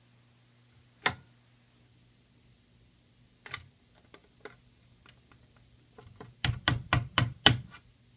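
Handle of a Pyr-A-Larm manual fire alarm pull station being worked by hand: one sharp knock about a second in, a few light clicks, then a quick run of about six knocks near the end, roughly four a second. No chime sounds: the station is not putting the panel into alarm.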